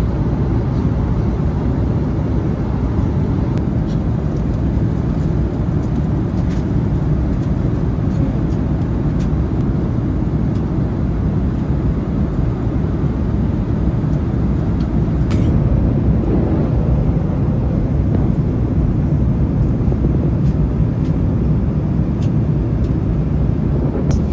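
Steady low cabin noise of a jet airliner in flight, heard from inside the cabin, with one sharp click about fifteen seconds in.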